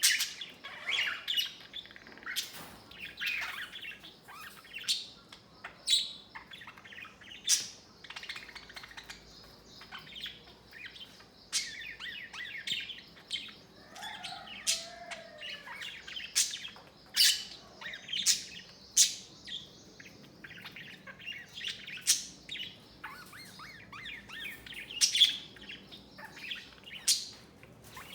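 Budgerigar chirping and chattering: short, sharp, high chirps at irregular intervals over a continuous soft warbling chatter.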